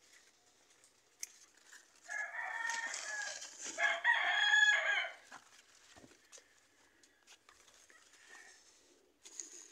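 A rooster crows once, a long crow of about three seconds starting about two seconds in, amid a few faint clicks.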